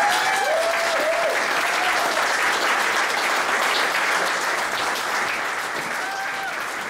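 Audience applauding steadily, with a few voices calling out near the start and once more near the end.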